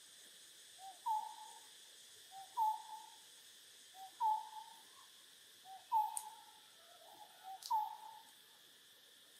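A bird's two-note hooting call repeated five times, about every one and a half seconds: a short lower note, then a louder higher note that slurs down. A steady high insect drone runs underneath.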